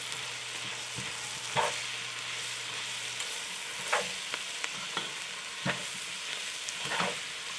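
Sautéed vegetables sizzling in a pot while a plastic spoon stirs flour into them for a roux, the spoon scraping against the pot every second or so.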